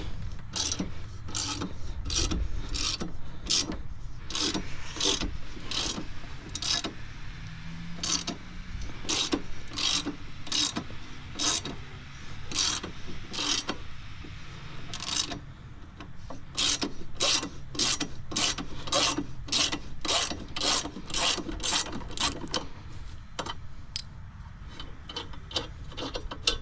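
Socket ratchet clicking in a steady rhythm, about two strokes a second, as it turns out a lawnmower blade bolt. There is a short pause about halfway through.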